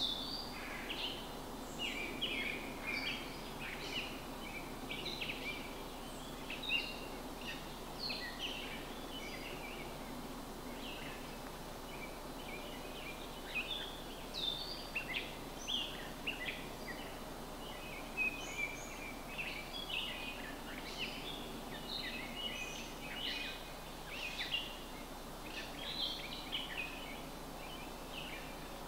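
Songbirds chirping and singing in short, overlapping calls throughout, over a steady low background hum.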